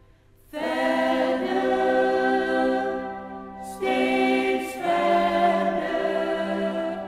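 Mixed gospel choir of men's and women's voices singing in harmony. It comes in about half a second in after a brief pause and eases off briefly near the middle before the next phrase.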